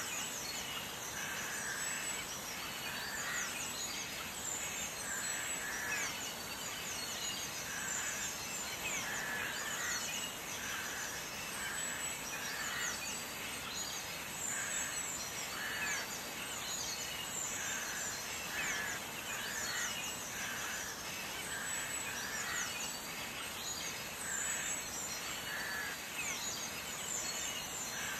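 Birds chirping, short calls repeating over and over above a steady background hiss.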